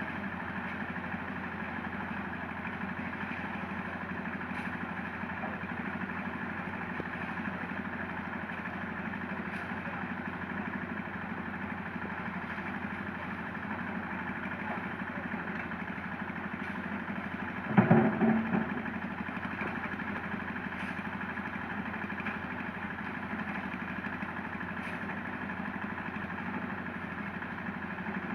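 Diesel engine of a Hitachi Zaxis 200 long-arm excavator running steadily at a constant speed. About two-thirds of the way through there is a short, loud clatter.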